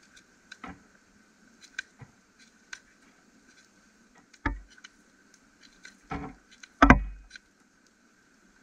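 Steel knife carving the end of a wooden stick: a few sharp cuts, the loudest two close together near the end, over small scattered crackles from a campfire.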